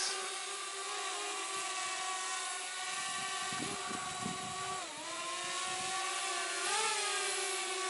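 DJI Spark quadcopter's propellers whining steadily as it holds a hover in strong wind, the pitch dipping about five seconds in and rising briefly near seven seconds. Wind gusts rumble on the microphone in the middle.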